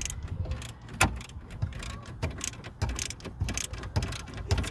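Irregular clicks and knocks of hand work on metal brackets and screws, over a steady low hum.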